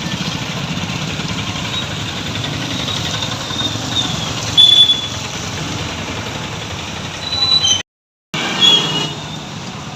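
Road traffic: a vehicle engine running close by with a steady pulsing rumble, cut by short high-pitched horn toots about four and a half seconds in and again near the end. The sound drops out completely for half a second about eight seconds in.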